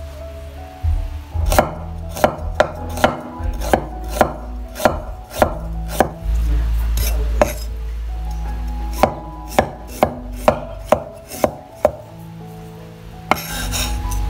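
Cleaver slicing galangal on a wooden chopping board: sharp knocks of the blade on the wood, about two a second, with a pause in the middle. A short rustle comes near the end.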